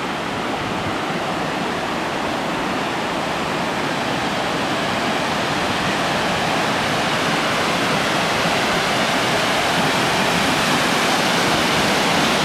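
Crabtree Falls' lower cascade rushing steadily, growing slightly louder as it comes nearer.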